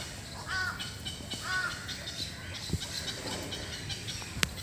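Birds calling in an aviary: one bird gives a short call three times, about a second apart, over steady high chirping from smaller birds. Two sharp clicks follow later, the second near the end and the loudest.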